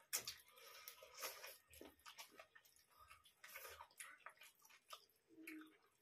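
Faint, irregular chewing, biting and mouth smacks of people eating chicken leg and rice by hand, with soft squishes of rice being mixed on steel plates.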